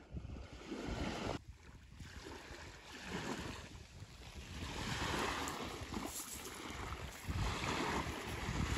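Sea surf washing onto the beach, with gusts of wind rumbling on the microphone; the wash grows fuller about halfway through.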